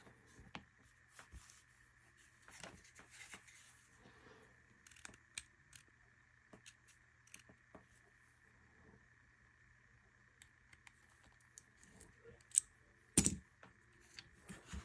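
Small metal clicks and light scraping from the steel parts of a Springfield Armory 1911 DS Prodigy pistol frame being handled and worked with a small screwdriver or punch. The sounds are sparse and come in short clusters, with a few louder knocks near the end.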